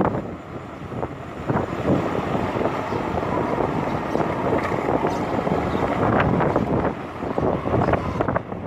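Wind buffeting the microphone over the steady noise of a moving vehicle.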